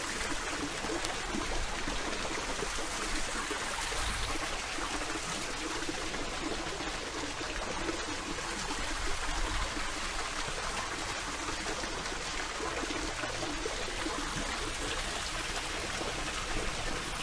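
Water running steadily in a garden water feature, an even trickling hiss that does not change.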